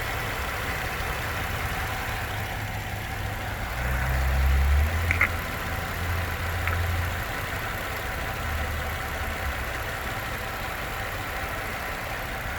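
Holden VZ Commodore's freshly swapped-in engine idling steadily with a new water pump fitted. It swells briefly about four seconds in.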